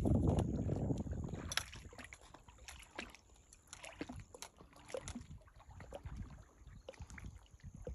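Low wind rumble on the microphone that dies away over the first second or two, then small lapping and clicking of rippled lake water at the shoreline.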